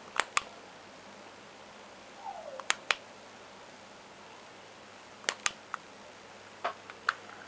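DEVE illuminated elevator call button being pressed and released: three paired clicks, in and out, with two single clicks near the end and a short squeak a little after two seconds.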